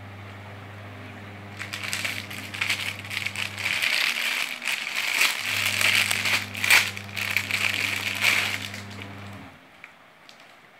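Parcel packaging being handled and opened by hand: several seconds of crinkling and rustling with many small crackles, starting about a second and a half in and stopping shortly before the end. A steady low hum runs underneath and drops out twice.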